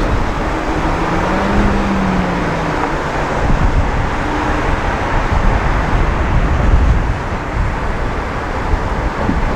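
Road and traffic noise picked up by a camera on the roof of a moving van: a steady rushing noise with a heavy low rumble. About a second in, a faint engine hum rises and falls in pitch.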